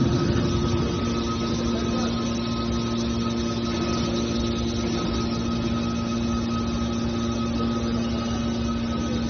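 Hydraulic scrap metal baler running, its motor and hydraulic pump giving a steady hum with a few steady pitched tones.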